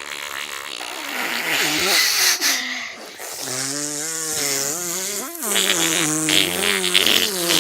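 A person making a run of imitation fart noises, one after another, with a wavering pitch and brief breaks about three seconds in and again past five seconds.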